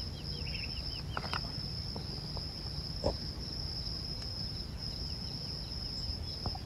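Insects trilling steadily in a high, even buzz that breaks off briefly now and then. A bird gives a quick run of short falling chirps about a second in. A low rumble sits underneath.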